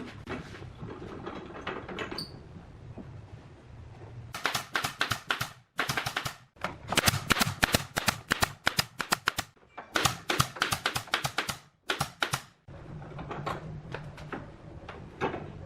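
A rapid run of sharp clicks and taps, several a second, coming in bursts for about eight seconds, with a low steady hum before and after.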